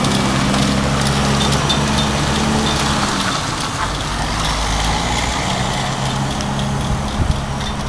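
Peterbilt semi truck's diesel engine running as it pulls a loaded lowboy trailer. The engine note drops away about three seconds in and picks up again a couple of seconds later. There is a brief thump near the end.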